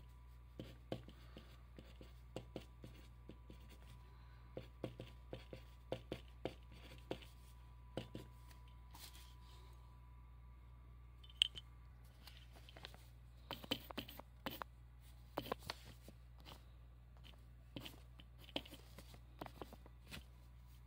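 Writing by hand on paper: short, irregular scratches and taps of a pen or pencil tip, in scattered clusters, with one sharper tap about eleven seconds in.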